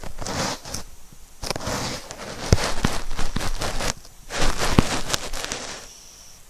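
A sleeping 12-year-old Yorkshire terrier snoring: four noisy breaths with short pauses between them and small clicks through them, fading out near the end.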